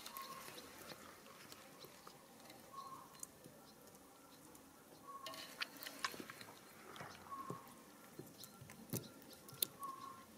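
Soft wet squelches and clicks of a hand squeezing and stirring cut cherry tomatoes, busiest about halfway through and near the end. A faint short chirp repeats about every two and a half seconds.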